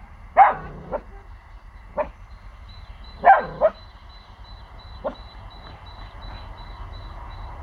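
A four-month-old pomsky puppy (Pomeranian–husky cross) barking in short, sharp alarm barks at sounds from next door: a loud bark near the start, a loud pair about three seconds in, and a few shorter, quieter yaps between and after.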